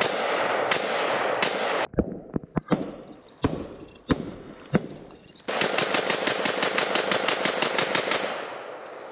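Zastava M70 AK-pattern rifle (7.62×39 mm) firing at a john boat. It fires a few spaced shots, then a muffled stretch where water is heard rushing into the flooding hull between scattered shots. From about halfway in comes a rapid string of about twenty shots at roughly seven a second, ending near the end.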